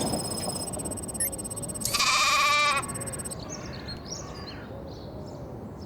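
A cartoon animal's bleat, one loud wavering cry about two seconds in.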